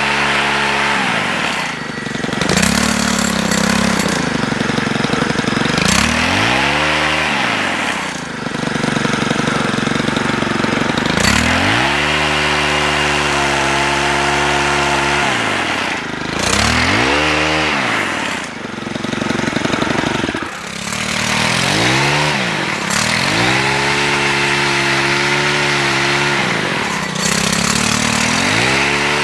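Stihl HT103 pole saw's 4-MIX engine revving up and falling back to idle about seven times, held at high revs for stretches of several seconds at a time.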